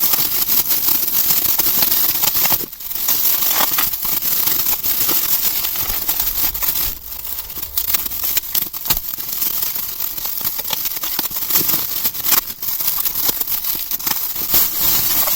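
Plastic packing bags crinkling and rustling almost without pause as layer after layer of wrapping is pulled off a packed item, with many small crackles.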